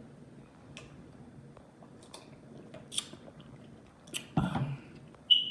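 A person chewing food with their mouth close to the microphone, with small wet mouth clicks and a louder, half-second bite or mouth noise a little after four seconds in.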